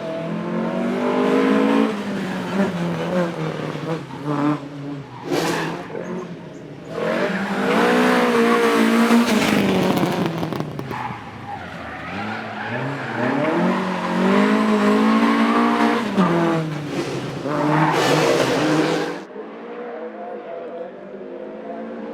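Datsun race car's four-cylinder engine at full throttle, revving up through the gears with the pitch climbing and then dropping at each change. It grows louder as the car comes past and fades away near the end.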